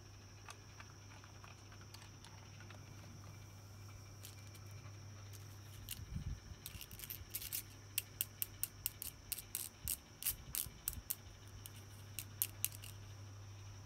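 Small plastic toy pieces being handled. A few faint ticks give way, about halfway through, to a quick run of light, crisp clicks and taps, over a low steady hum.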